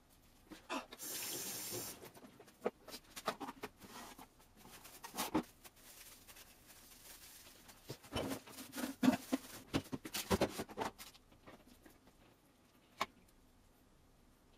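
Clinks, knocks and light clatter of kitchenware being handled, busiest in a run of knocks past the middle, with one short hiss about a second in.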